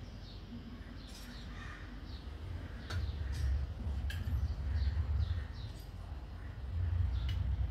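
Small birds chirping in short falling notes over a low rumble that grows louder about three seconds in, with a few sharp clicks.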